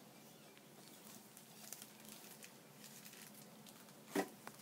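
Quiet handling of trading cards and packaging, with small scattered clicks and one sharp knock about four seconds in.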